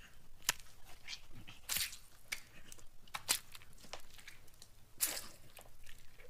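Wet chewing and crunching of a creature feeding on a body: irregular smacks, clicks and squelches of tearing flesh.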